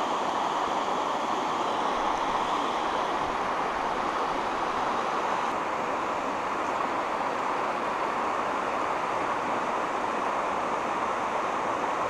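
Steady rush of flowing river water, an even hiss with no breaks or distinct events.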